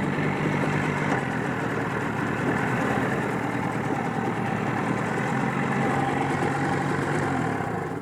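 Small boat's outboard motor running at a steady speed.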